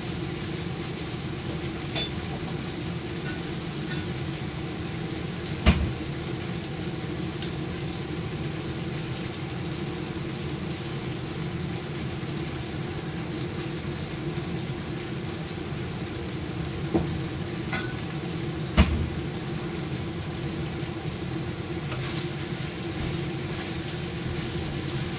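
Chicken and fresh mushrooms stir-frying in oyster sauce in a frying pan on a gas stove, a steady sizzle throughout. A few sharp knocks stand out, the loudest about six seconds in and again near nineteen seconds.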